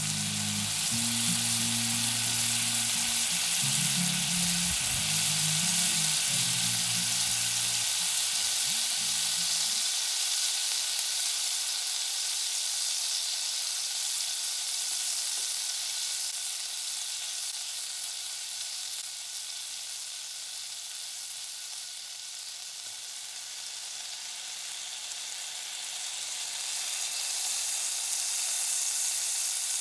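Hot fat sizzling steadily in a frying pan with a halved lemon frying in it.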